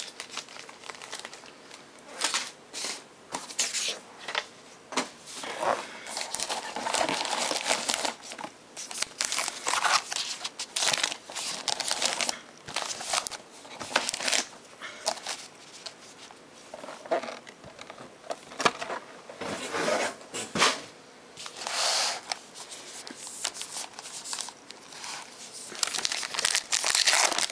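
Trading card pack wrappers from a Topps Allen & Ginter box crinkling and tearing as hands open packs, in many short irregular rustles.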